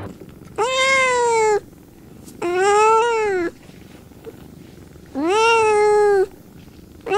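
Kitten meowing: three drawn-out meows of about a second each, each rising a little then falling in pitch, with a fourth beginning near the end.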